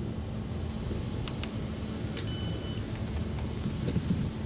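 A single short electronic beep from the shop checkout, about half a second long, a couple of seconds in. Under it is a steady low hum of shop machinery and a few light clicks.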